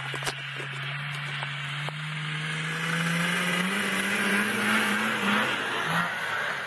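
Yamaha Enticer two-stroke snowmobile engine pulling a snowboarder on a tow rope. Its pitch climbs steadily for about five seconds, then falls off near the end.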